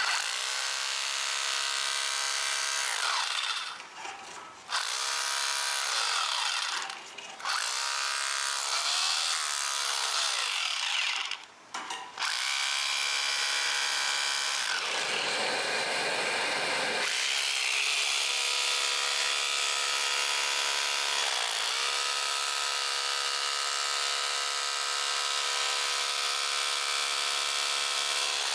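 A small electric motor running in spells. It stops briefly a few times, then runs steadily, its pitch dipping and recovering now and then.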